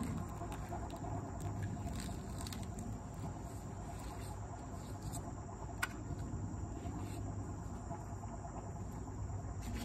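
Insects chirring in a steady, high-pitched outdoor chorus, with faint scrapes from hands working foam on pool steps and one light click about six seconds in.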